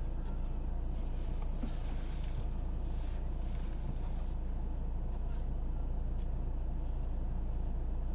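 Diesel Jeep engine idling with a steady low rumble, heard from inside the cabin while the vehicle waits.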